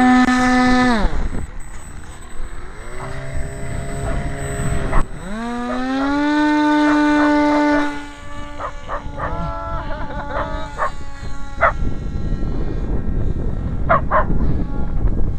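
RC model airplane's motor and propeller running with a steady pitched drone. The pitch drops about a second in, climbs back around two and a half seconds in and holds, then the drone stops about eight seconds in and comes back only in short broken bursts. After that, strong wind rushes over the microphone, with a few clicks near the end.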